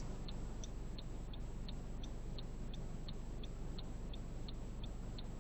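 Car turn-signal indicator clicking at an even pace, about three clicks a second, over the low steady hum of the car idling in its cabin.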